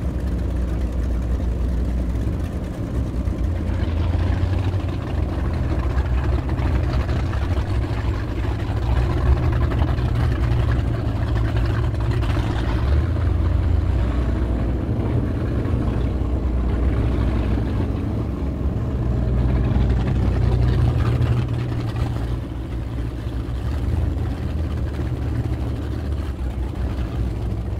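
Triple Mercury Racing 1350 inboard engines of a Fountain 47 Lightning running together at low speed: a steady deep rumble that swells and eases slightly now and then.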